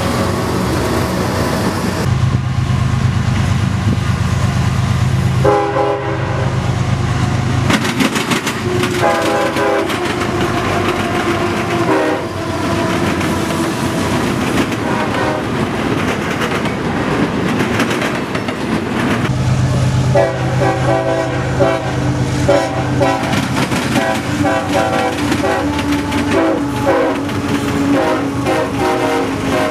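Nathan K5HL five-chime air horns on passing GE freight locomotives sounding a series of chord blasts, some long and some short. Underneath, the diesel engines rumble and the wheels clatter over the rails.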